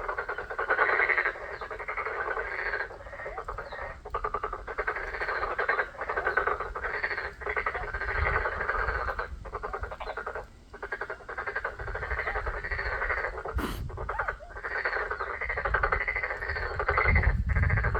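A dense chorus of frogs calling in a wetland, many rapid pulsed croaks overlapping almost without a break. A low rumble rises near the end.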